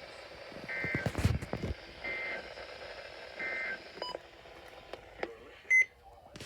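Three short data bursts of the NOAA Weather Radio SAME code, each a two-tone warble about a second and a bit apart, over faint radio hiss: the end-of-message signal that closes the watch broadcast. Near the end comes a short, sharp beep.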